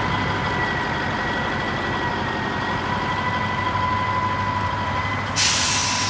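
Heavy diesel truck idling, a steady high whine over the low engine running. About five seconds in, a sudden loud hiss of released air starts and runs on, like an air-brake or air-system release.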